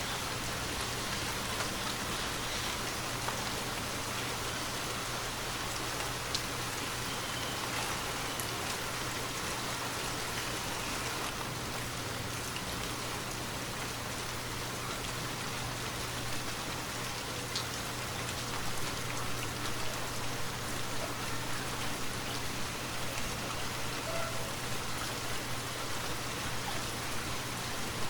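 Steady rain falling on a forest, an even hiss with a few individual drops ticking out now and then.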